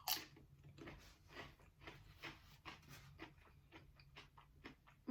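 A person chewing a mouthful of aguachiles close to the microphone: a run of faint, irregular mouth clicks, several a second, with one sharper click right at the start.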